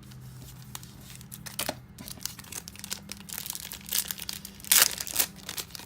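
Crinkling and rustling of packaging and trading cards being handled during a card break, with a louder burst of crinkling about five seconds in, over a faint steady hum.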